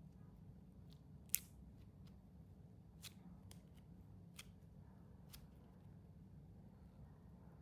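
Sparse crisp crackles from a soft jelly stress ball filled with clear beads being squished: a handful of separate sharp clicks, the loudest just over a second in, over a low steady hum.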